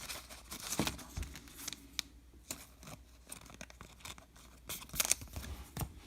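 A baseball card pack wrapper crinkling and tearing, with scattered clicks and rustles of cards being handled.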